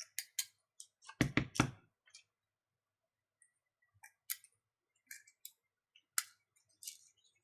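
Small repair tools clicking and tapping against the parts of a smartwatch being taken apart: scattered sharp clicks, with a quick run of four heavier knocks a little over a second in.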